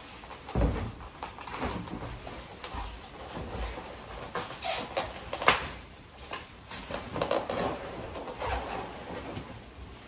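Bubble wrap crinkling and rustling, with cardboard rubbing and knocking, as a bubble-wrapped plastic toy kitchen base is lowered into a large cardboard box and pressed down. A low thump comes just over half a second in and a sharp snap about five and a half seconds in.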